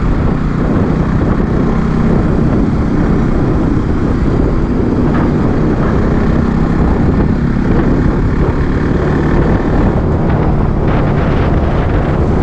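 Bajaj Pulsar NS200's single-cylinder engine running steadily at cruising speed, its pitch held level, mixed with wind rush on the action camera's built-in microphone.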